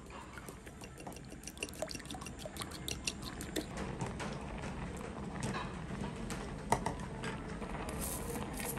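Irregular small clicks and taps of tableware and eating, with a wet, dripping quality; a faint hiss joins near the end.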